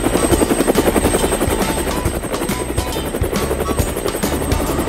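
Helicopter rotor sound effect: a rapid, even chop of the blades as the helicopter lifts off and flies, with light background music underneath.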